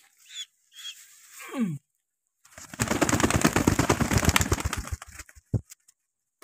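A pigeon's wings flapping hard and fast as it is caught by hand: a dense clatter of wingbeats that starts about two and a half seconds in and lasts roughly two and a half seconds.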